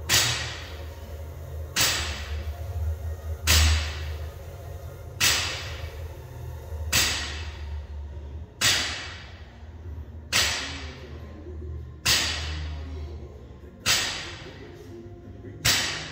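Gym equipment striking hard, ten heavy thuds at a steady pace of about one every 1.7 seconds, each ringing out briefly: repetitions of a barbell with bumper plates and the pull-up rig being worked.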